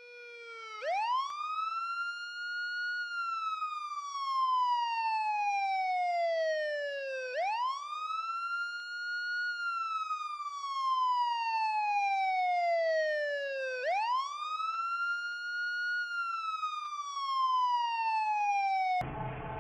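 Emergency siren wailing: three slow cycles, each rising quickly, holding briefly, then gliding slowly down in pitch. It cuts off suddenly near the end, giving way to a steady noise.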